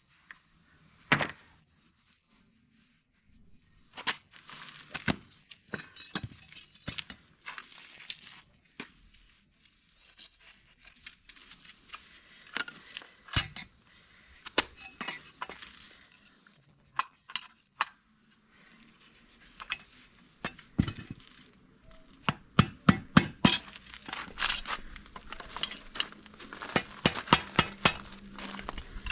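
Hand-tool work on a motorcycle's rear swingarm: scattered metal clicks and knocks, with bursts of quick clicking past the middle.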